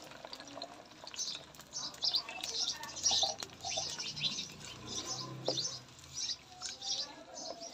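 Sliced onions sizzling and crackling in hot ghee in a clay pot, with a wooden spoon stirring them through.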